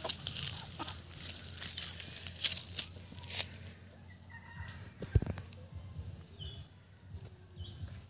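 Young parrot-beak Aseel chickens scuffling and flapping their wings on dry ground, a busy run of rustles and flaps that quietens after about three seconds. A couple of faint short calls follow near the end.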